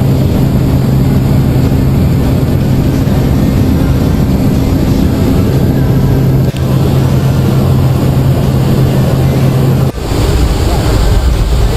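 Jump plane's engine drone heard inside the cabin during the climb: a loud, steady low hum over rushing noise. About ten seconds in, the hum gives way to a brighter, noisier rush of wind.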